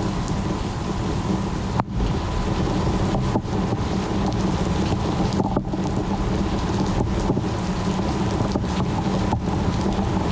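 Thunderstorm: a steady heavy rain noise over a continuous low rumble of thunder. The sound drops out for an instant several times, first about two seconds in.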